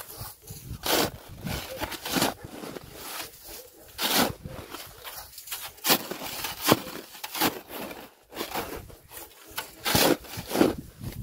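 Packed snow crunching under boots and a snow shovel as a path is trampled and dug through deep snow, in irregular strokes about one a second.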